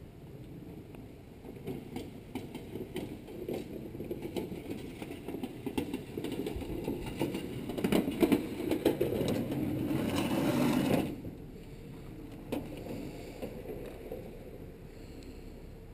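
Four-wheeled radio-controlled robot's drive motors and gearboxes running as it drives over grass, with rattling clicks. It grows louder as the robot comes close, then cuts off suddenly about eleven seconds in.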